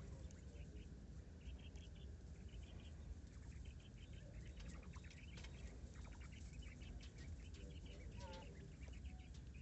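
Faint quail sounds from inside the cage: short repeated chirping trills, a few light clicks and, near the end, a couple of brief falling calls, over a low steady hum.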